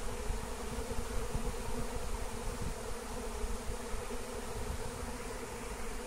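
A swarm of honey bees buzzing: a dense, steady hum from a mass of bees crawling and flying around a hive box.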